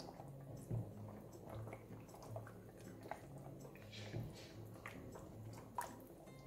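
A spatula stirring chicken pieces through coconut cream in a stainless steel pot: soft squelching with light scrapes and taps against the pan.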